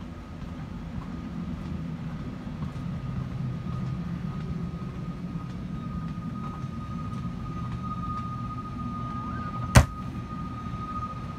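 Steady low hum inside an empty Embraer E190-E2 airliner cabin, with a thin steady whine above it. About ten seconds in comes one sharp clack as a hand pushes on an overhead bin door.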